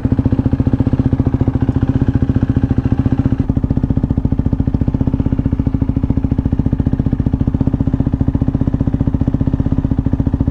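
KTM RC 390's single-cylinder engine idling steadily through a newly fitted Akrapovic shorty slip-on muffler, with an even, rapid exhaust pulse. The higher part of the sound drops a little about three and a half seconds in.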